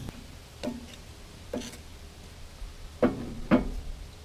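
A few scattered metal knocks and clunks from work on a tractor radiator: two faint ones in the first two seconds, then two louder ones about three seconds in, half a second apart.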